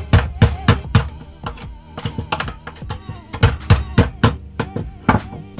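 Steel hammer tapping the end of an iron tube to seat the spring and bolt inside it: sharp metal taps in quick runs of several strokes, with short pauses between runs. Background music plays under the taps.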